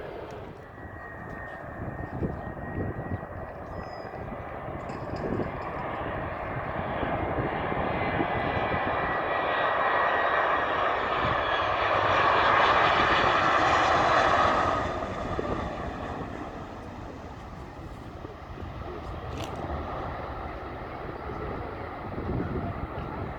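Jet airliner passing by. Its engine noise builds over about a dozen seconds, peaks, then falls away quickly, with a thin whine that glides slowly lower as it goes.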